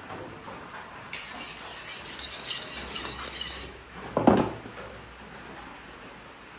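A kitchen knife's steel blade giving a long, bright metallic scrape for about two and a half seconds, starting about a second in, followed by a single dull knock.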